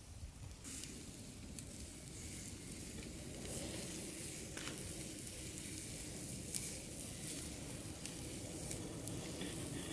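Bratwursts sizzling in a campfire, a steady hiss broken by scattered sharp pops and crackles from the burning wood.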